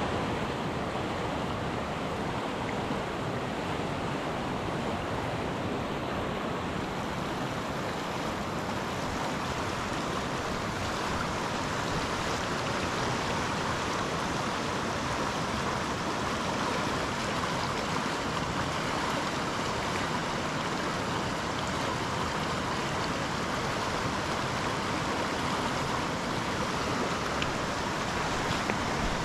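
Small rocky trout stream running steadily over rocks and riffles, an even rush of water.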